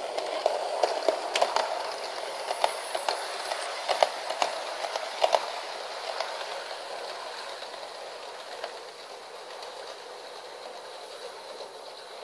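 Model electric train with double-decker coaches running on sectional track: a steady whirring rumble of wheels and motor, with irregular sharp clicks as the wheels cross the rail joints. Loudest in the first half, it fades as the train runs away.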